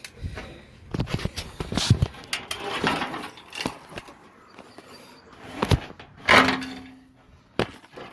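A BMW E36 front fender being worked loose and pulled off the car body: a run of knocks, clicks and scrapes, with a louder scrape about six seconds in.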